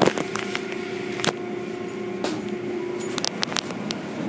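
Automatic car wash machinery running: a steady mechanical hum with spray noise from the wash tunnel, broken by several sharp clicks and knocks.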